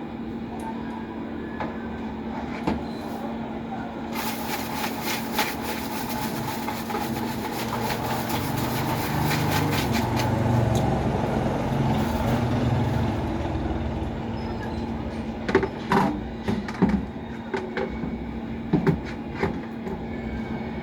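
A vehicle passing: a rumbling noise builds up, peaks and fades away over about ten seconds, over a steady low hum. A few sharp clicks come near the end.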